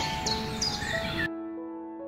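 Soft background keyboard music of sustained notes, with birds chirping over it; the birdsong and background hiss cut off abruptly a little over a second in, leaving the music alone.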